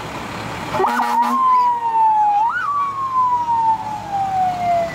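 Emergency vehicle siren: a quick chirp about a second in, then one long wail that slowly falls in pitch, with a short upward whoop midway.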